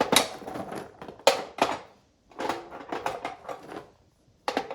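Lava stones knocking and clattering against each other as they are handled and tipped into the fire table's burner pan, in several irregular bursts of clatter.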